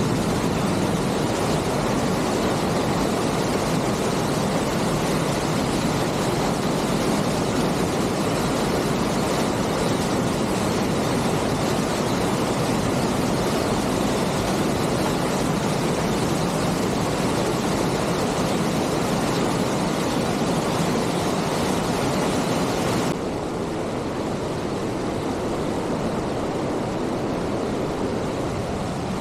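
Aira Force waterfall, water rushing and falling steadily. About 23 seconds in, the sound becomes a little quieter and duller as the shot changes.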